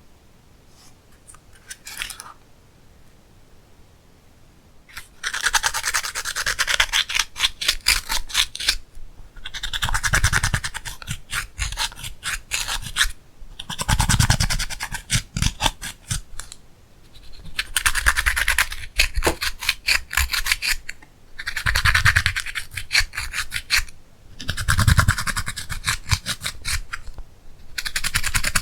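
Slime being kneaded and stretched by hand, a sticky crackling of many small pops and clicks. It comes in about six bursts of a few seconds each, starting about five seconds in after a quiet start.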